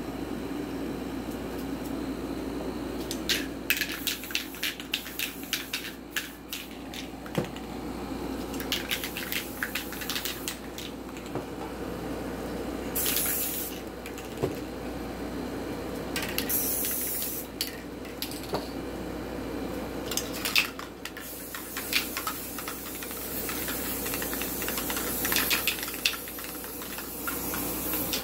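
Aerosol spray-paint cans hissing in short bursts and one longer spell, with clusters of sharp clicks and clatter as the cans are handled, over a steady low hum.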